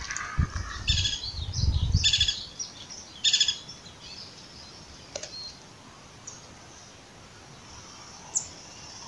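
Birds chirping in three quick bursts in the first few seconds, then one short high chirp near the end, over a steady outdoor hiss. Low thumps come with the first bursts, and there is a single sharp click midway.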